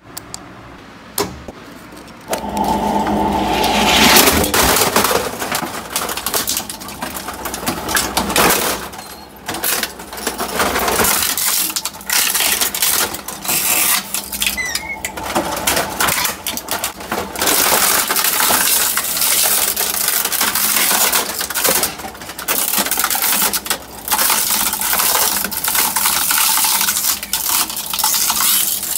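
Industrial rotary-shear shredder starting up: its motor begins a steady hum about two seconds in. Then plastic printers crack and crunch as the toothed cutter discs tear them apart, in long grinding stretches broken by brief lulls.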